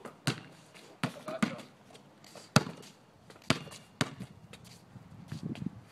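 A basketball bouncing on a paved driveway: about six sharp bounces at uneven intervals, the loudest about two and a half seconds in.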